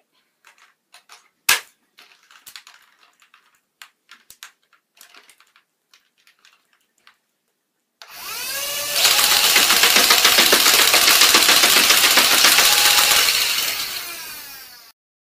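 A few clicks and handling knocks, then about eight seconds in a modded Air Zone MG-25 motorized dart blaster whines up and fires rapid automatic bursts for about six seconds, slowing and stopping near the end.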